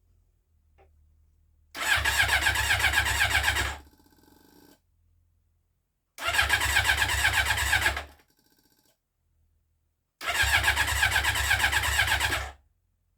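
Yamaha XJ600 inline-four motorcycle engine being cranked on its electric starter in three bursts of about two seconds each, with a fast even pulsing and pauses between them. The engine does not catch: it is a bike that has stood unused for about eight months.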